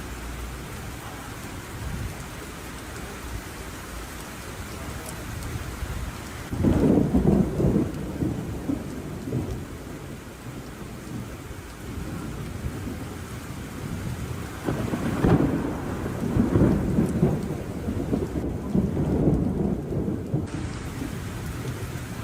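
Steady rain with two rolls of thunder. A rumble builds about a third of the way in, and a longer, louder rolling rumble follows past the middle.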